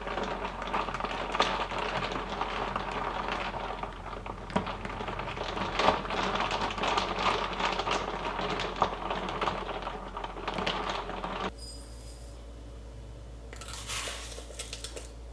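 Ice cubes in an iced dalgona coffee clinking and knocking against the glass as a straw stirs the drink, with a busy rustle of small clicks. It cuts off abruptly a little past the two-thirds mark, and a brief rustle follows near the end.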